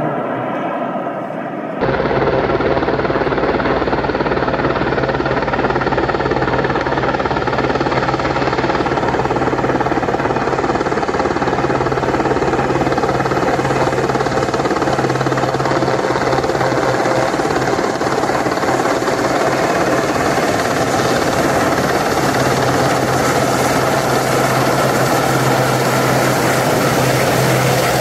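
RAF Westland Sea King search-and-rescue helicopter hovering as it comes in to land: the steady noise of its rotors and twin Rolls-Royce Gnome turboshaft engines, loud and close. The sound jumps sharply louder about two seconds in and then holds steady.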